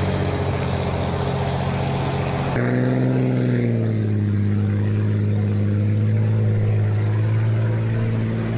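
The restored 1979 Squire Shop hydroplane's engine running steadily with a deep, even drone. About two and a half seconds in the sound turns duller, and the engine's pitch then eases down a little.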